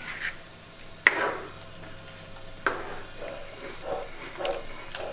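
A spatula stirring a thick pork blood stew in a heavy pan, knocking sharply against the pan about a second in and again near three seconds, with softer scraping after.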